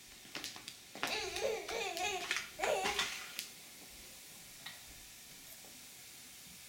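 A baby babbling for about two seconds, a high, wavering run of voice sounds, after a few light taps in the first second.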